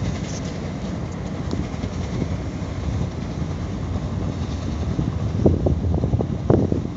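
Steady low rumble of a cargo ship's engine working as it manoeuvres in harbour, with wind buffeting the microphone in gusts that grow stronger near the end.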